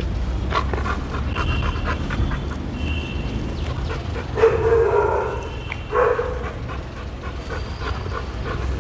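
A dog vocalises briefly twice, about halfway through and again a second and a half later, over a steady low rumble.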